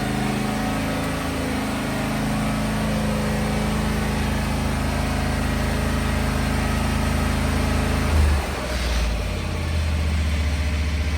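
Petrol lawn mower engine running steadily. About eight seconds in, its note drops to a lower, deeper hum and it keeps running.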